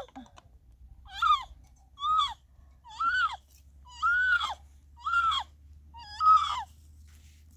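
An animal's short, high cries repeated about once a second, six in all, each rising and then falling in pitch.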